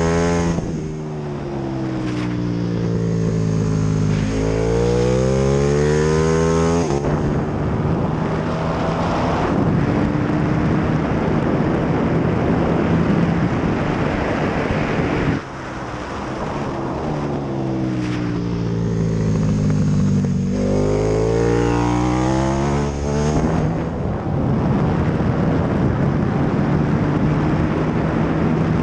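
KTM 1290 Super Duke R's V-twin at racing speed, heard from on board, with wind rushing past. It falls through the revs under braking, then rises hard as the bike accelerates out of the corner, and holds high and steady flat out. About fifteen seconds in the throttle shuts off suddenly and the revs fall again for the next braking zone, then climb once more as it drives out and runs flat out to the end.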